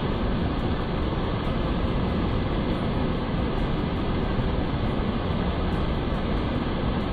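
A fast mountain river rushing over rocks in whitewater rapids: a steady, unbroken wash of water noise.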